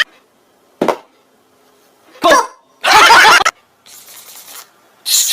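A person making sound effects with the mouth and voice: a short pop, then a brief falling yelp, a longer loud voiced burst and a faint hiss, each separated by short gaps.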